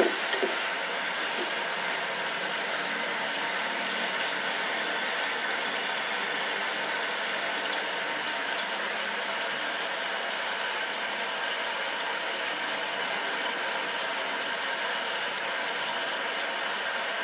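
Thickened coconut milk sizzling in a pan over low heat, a continuous even hiss. The solids have cooked down and the coconut oil is starting to separate.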